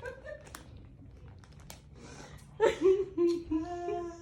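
A few light clicks, then a person's voice about halfway in, ending in one long held note.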